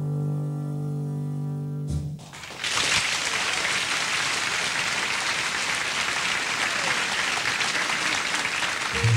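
A big band with trumpet lead holds a final sustained chord, which cuts off sharply about two seconds in. Audience applause follows, steady to the end, where the band starts again with low bass notes.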